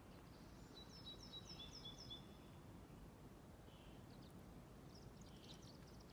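Faint songbird song: a quick run of about five high repeated notes about a second in, then scattered high chirps near the end, over a steady low outdoor background hiss.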